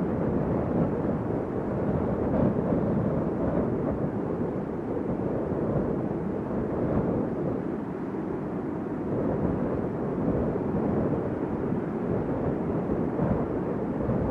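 Strong wind blowing in a steady low rush, swelling and easing in slow gusts.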